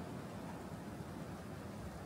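Faint, steady outdoor ambience of a snowy street: an even hiss with a low rumble underneath and no distinct events.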